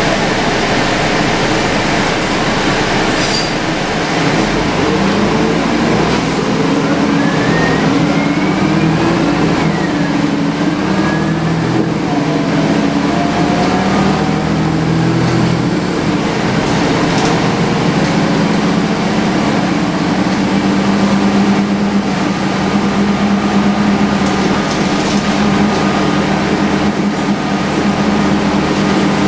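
Cabin sound of a MAN 11.220 midi bus under way: the diesel engine's note climbs and drops as the bus pulls through the gears for the first half, then holds steady, under the constant loud rush of the air-conditioning unit. A faint rising whine from the ZF automatic gearbox comes through the AC noise about a third of the way in.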